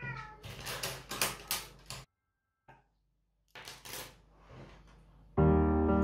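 Hard plastic Lego parts clicking and clattering on a wooden table as they are handled and scattered, in quick runs of clicks with a short pause between. Piano music starts about five and a half seconds in, louder than the clicks.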